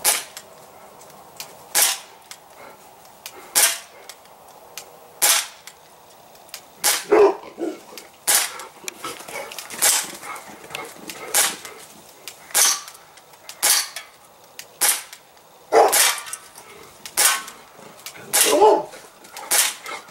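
Crosman C11 CO2-powered semi-automatic BB pistol firing a steady string of sharp pops, roughly one shot a second.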